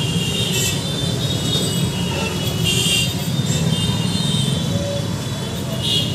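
Busy road traffic running steadily at a street intersection, with short high-pitched horn toots at the start, about three seconds in and near the end.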